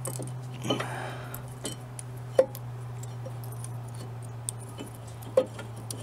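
Small metal brake parts being handled, giving scattered light clicks and clinks with two sharper clinks, one about halfway through and one near the end, over a steady low hum.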